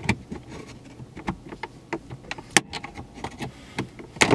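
Plastic clicks and snaps as a Honda Civic's shift-lever trim panel is pried up and worked loose from its push-in clips with a plastic panel tool, with one sharp snap about two and a half seconds in and more clicks near the end.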